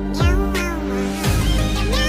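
Electronic music with two heavy kick-drum hits and gliding, voice-like pitched notes over a held bass tone.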